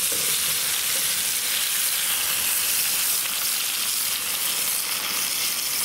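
Pork chops searing in hot oil in a cast-iron Dutch oven: a steady, loud sizzle, with another chop laid into the pot at the start.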